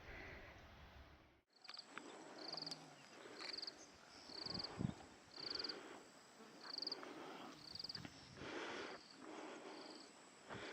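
Insect chirping outdoors: a short, high, finely pulsed chirp repeated steadily a little more than once a second, over a faint background hiss.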